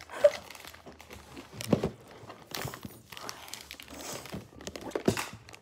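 Cardboard box and foil wrapper crinkling and rustling as a foil-wrapped sweet is taken out of its box, with a few sharper rustles about a second and a half in and near the end.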